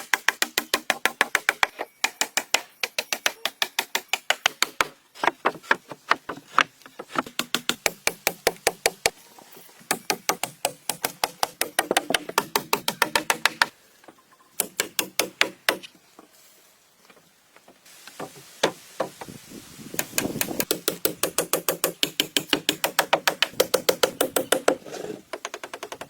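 Rapid runs of sharp knocks, several a second, broken by short pauses, with a stretch of steadier hiss about three-quarters of the way through.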